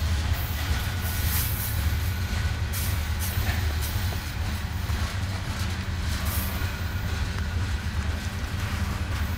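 Freight train's container-laden flatcars rolling past: a steady low rumble of steel wheels on rail.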